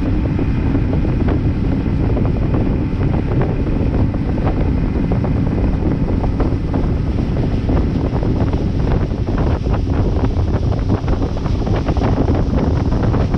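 Wind buffeting the microphone over a bass boat running at speed, its Mercury outboard a steady hum beneath the rush of water along the hull. Loud and unbroken.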